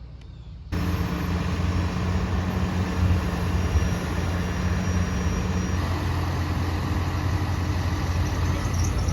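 Engine running steadily at idle, with a low, even hum that starts abruptly under a second in after a quieter low rumble.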